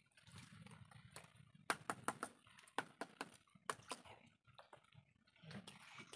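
Faint footsteps of someone picking their way through mangrove mud and roots: irregular sharp clicks and knocks, closest together in the middle, over a low rumble near the start.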